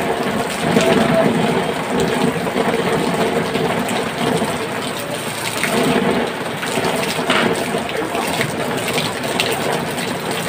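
Heavy rain from a rainstorm falling steadily, a continuous hiss, with people talking in the background.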